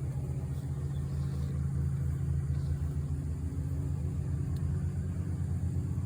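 Honeybee swarm humming, a steady low drone of many wingbeats.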